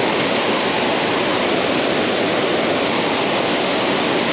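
Steady rushing roar of a 30-foot waterfall, close by and unbroken.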